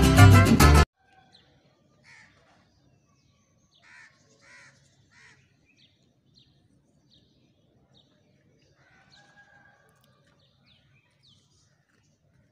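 Background music cuts off suddenly under a second in. After it come faint bird calls: three calls about half a second apart, then a string of short high chirps.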